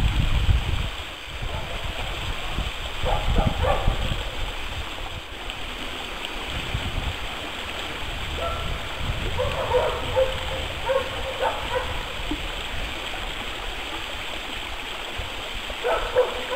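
Running water of a stream flowing steadily, with mallards quacking in short bursts about three seconds in, around ten to twelve seconds in, and again near the end.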